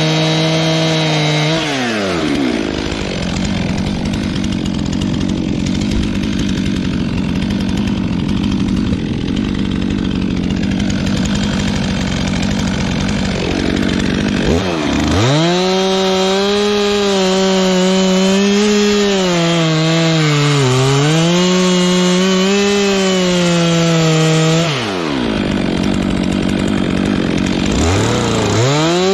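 Stihl MS 362 two-stroke chainsaw with an electronic carburettor bucking firewood at full throttle. It makes two long cuts through logs, the first lasting about twelve seconds and the second about three seconds near the end. Between the cuts it drops briefly and then runs free at high revs with a wavering pitch.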